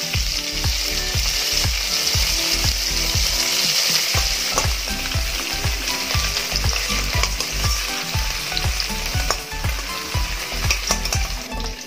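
Paneer cubes sizzling in hot oil in a stainless steel wok. A metal spatula clicks and scrapes against the pan many times as the cubes are turned and browned.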